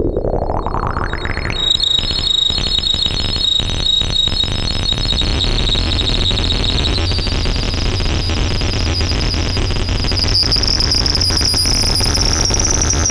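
Ciat Lonbarde Peterlin analog synthesizer being played by knob-twisting, heard through the TX-6 mixer's reverb. A pitch sweeps up from low to a high whistling tone in the first two seconds, then holds that tone. The tone steps higher about seven seconds in and again near the end, over a crackling noisy wash and a low hum.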